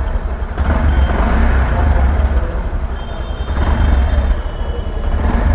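Bajaj Platina 110's 115.45 cc single-cylinder four-stroke engine running, heard close up at its stock exhaust, a plain note that is not crisp. The level dips a little midway and picks up again near the end.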